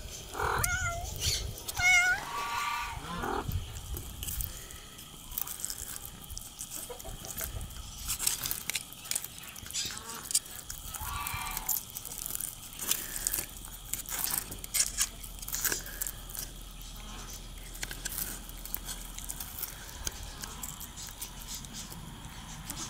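A domestic cat meows two or three times at the start, with a shorter call about 11 seconds in. In between come many short clicks and scrapes from the cat eating wet food and from the metal tin lid scooping food out of the can.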